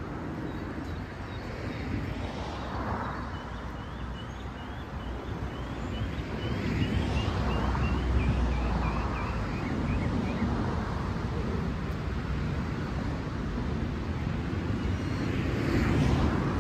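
Outdoor ambience: wind on the microphone over a low rumble of distant road traffic that swells around the middle. A bird gives a quick run of short, rising chirps from about three seconds in until about ten seconds.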